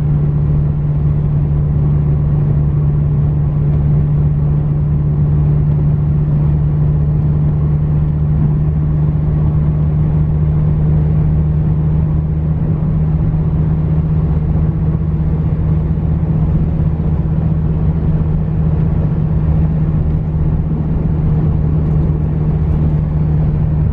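Dodge Viper GTS 8.4-litre V10 running at a steady idle, a constant low hum with no change in speed.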